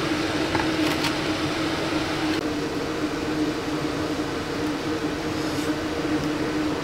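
Steady mechanical hum of a running machine with a constant low tone, with a brief knock about a second in.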